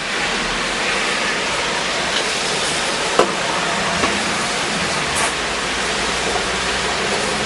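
Angle grinder with a coarse No. 36 sanding disc running steadily on wood: an even, dense rushing noise over a faint low hum, with a short sharp tick about three seconds in and another a second later.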